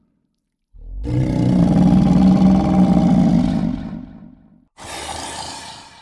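Dragon creature sound effect: a loud, low growl that starts about a second in and fades away over about three seconds, followed near the end by a shorter breathy exhale.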